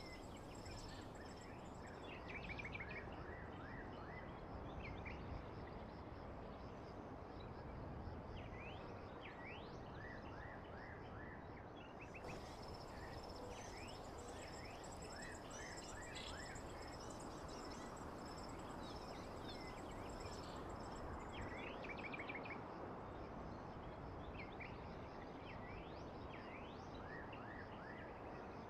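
Faint outdoor ambience: small birds chirping in short quick runs over a steady background hiss, with a thin high steady tone.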